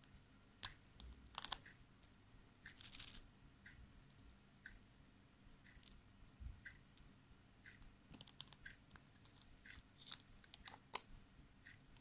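Handling noise from a small plastic display case and a corked glass vial being turned in the fingers: scattered light clicks and taps, with a short crackly rustle about three seconds in and a quick run of clicks near the end.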